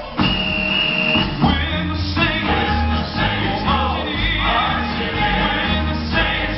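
Male Southern gospel vocal ensemble singing in harmony, amplified through a hall PA, over keyboard and a steady bass line. A high note is held for about a second near the start.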